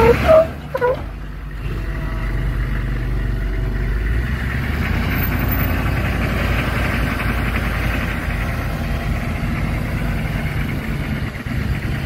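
2003 Humvee's engine running steadily at low revs as it crawls over slickrock. Two short high-pitched squeaks or calls come in the first second.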